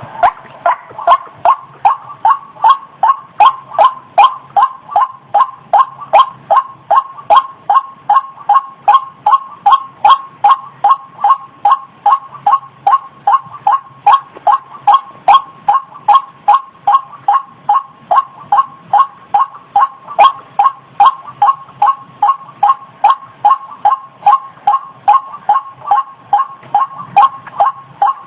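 White-breasted waterhen calling: a monotonous series of short, evenly spaced notes at about two to three a second, kept up without a break.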